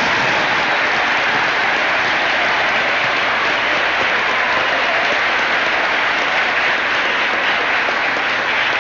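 A large audience applauding steadily after the end of a speech passage.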